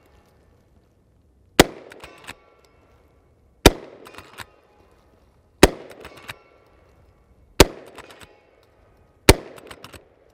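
Henry lever-action rifle in .45 Long Colt fired five times, about two seconds apart. After each shot come the clacks of the lever being worked, and after most shots the faint, slightly delayed ring of a steel gong struck at 75 yards.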